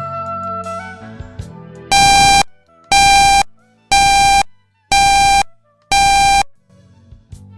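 Five loud electronic alert beeps, each about half a second long and one a second, starting about two seconds in. They cut over smooth jazz background music, which is heard alone at the start and returns faintly after the beeps.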